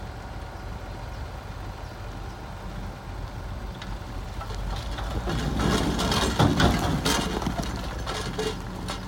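Bulldozer diesel engine running steadily. About five seconds in, a louder stretch of grinding clatter builds for a few seconds and then eases.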